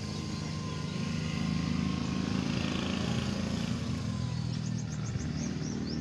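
A motor vehicle's engine running steadily nearby, a low hum that grows a little louder after about a second and eases off later. Quick, high bird chirps come in near the end.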